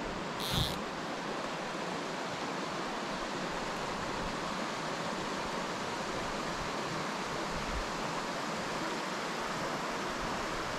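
Steady rush of a shallow mountain creek running over rocks, with one brief click about half a second in.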